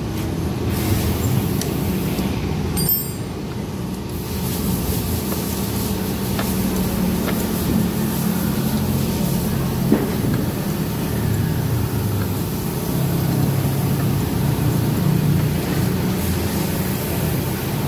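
Steady low mechanical hum, like a running engine nearby, with a single sharp click about ten seconds in.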